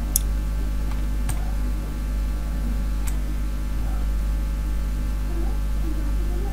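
Steady electrical mains hum with its buzzing overtones, broken by three brief clicks in the first three seconds.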